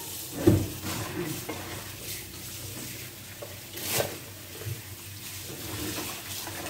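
Kitchen tap running steadily into a steel bowl in the sink as leafy greens are rinsed and handled. There is a thump about half a second in and a sharp knock at about four seconds.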